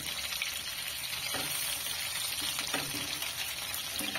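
Chicken pieces sizzling steadily as they shallow-fry in oil in a nonstick pan, with a few short clicks of a spatula against the pan.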